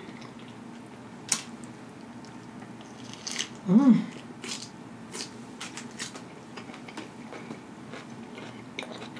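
Close-miked biting into a soft burger, an Impossible Whopper, then chewing with many small wet mouth clicks. There is a short hummed "mm" at the bite, about four seconds in.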